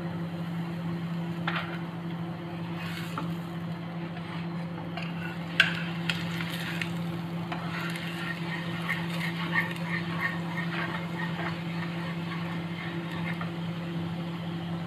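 Oil sizzling under a bajra (pearl millet) roti on a hot iron tawa, over a steady low hum. A steel spatula clicks and scrapes against the pan a few times, sharpest a little over five seconds in, as the roti is turned.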